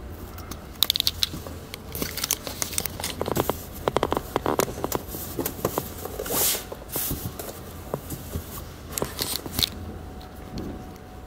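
Handling noise from a large plastic-backed tablet being lifted and turned over on a cloth: irregular rustling with many small clicks and knocks.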